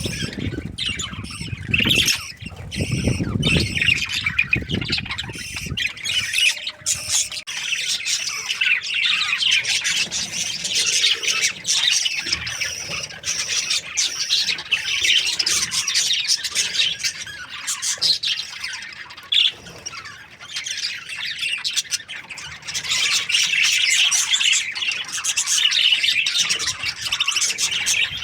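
A colony of budgerigars chattering and squawking continuously in many overlapping high, scratchy calls. A low rumble runs under the first few seconds.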